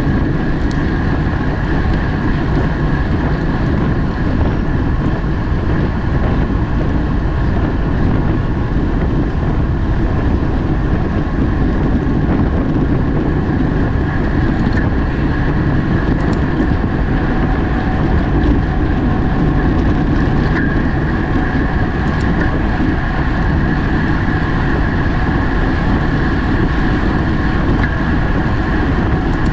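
Steady rush of wind buffeting the microphone and road rumble from a camera riding on a racing bicycle at speed, unbroken throughout.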